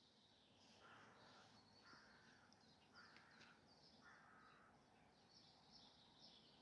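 Faint outdoor birdsong: a bird gives four harsh calls about a second apart, over small birds twittering.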